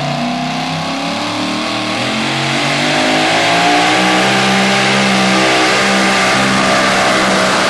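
Supercharged engine of a super modified four-wheel-drive pulling truck running hard under load down the track. Its pitch sags slightly, climbs about three seconds in, then holds high.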